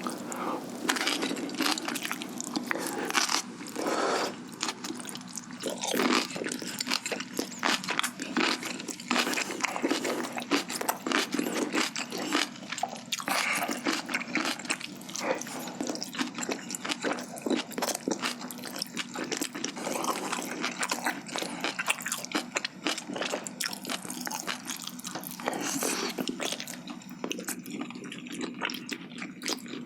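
Close-up chewing and crunching of food, mostly kimchi with spicy braised chicken: a continuous run of irregular wet, crackly bites and chews.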